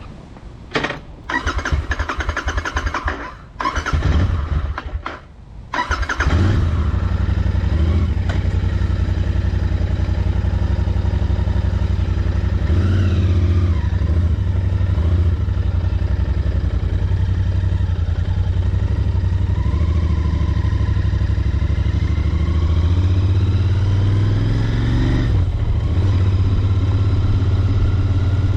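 Royal Enfield Interceptor 650's 648 cc parallel-twin engine starting: a few seconds of broken, stop-start noise, then the engine catches about six seconds in and settles into a steady idle.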